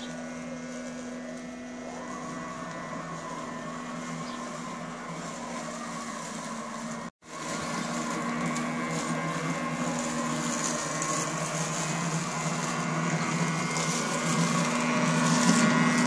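Robomow RM510 robotic lawn mower running, its electric motors giving a steady hum with several fixed tones. The sound cuts out for an instant about seven seconds in, then grows louder toward the end as the mower comes close.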